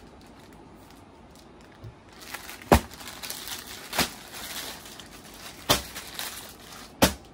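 Plastic packaging of bed-sheet packs crinkling as the packs are handled, starting about two seconds in, with four sharp slaps roughly a second or more apart.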